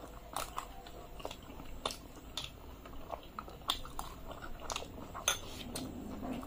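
Close-miked mouth sounds of people eating luchi and pea ghugni: chewing and wet smacks, with irregular sharp clicks from a metal spoon against a glass bowl.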